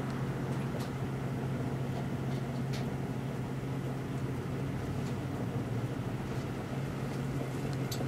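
Microwave oven running with a steady low hum, with a few sharp crackles from the digital watch burning inside it.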